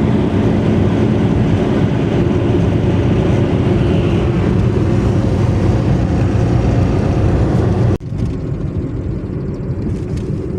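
Daewoo Matiz driving on the highway: a steady drone of engine, tyres and wind. About eight seconds in, it cuts off suddenly to a quieter, duller version of the same running noise.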